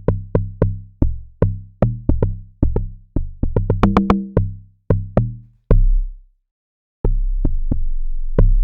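Amapiano log drum bass line playing from an FL Studio project: a quick run of short, deep, pitched hits, each starting with a click and dying away fast. The hits stop for a moment near six seconds, then start again over a held deep bass note.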